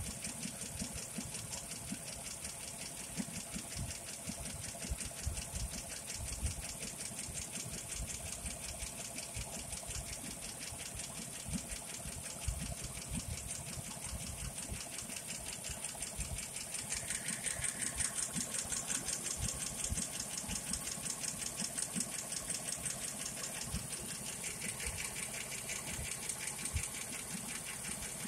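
1941 Buick Special's overhead-valve straight-eight engine idling steadily, with a fast, even ticking over its running.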